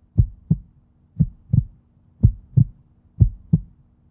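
Heartbeat sound effect: paired low thumps, a lub-dub about once a second, over a steady low drone.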